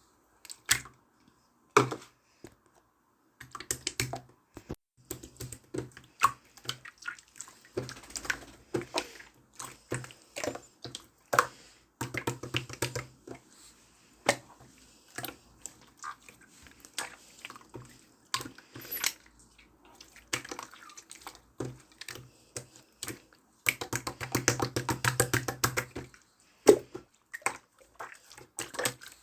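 Clear slime being worked by hand, giving a string of sticky clicks and pops, with a longer stretch of dense crackling toward the end.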